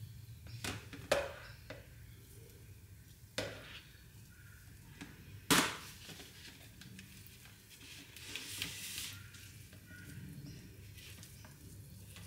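Silicone spatula scraping and stirring raw soap batter in plastic measuring jugs, with a few sharp knocks and taps of the jugs and spatula. The loudest knock comes about five and a half seconds in, and a stretch of soft scraping follows a few seconds later.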